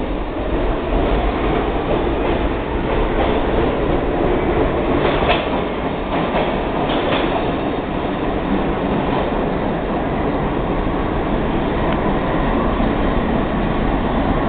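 R46 subway train pulling out of the station, its traction motors whining upward in pitch as it accelerates, over a steady rumble of wheels on rail. A few sharp clacks come about five to seven seconds in as the wheels cross rail joints.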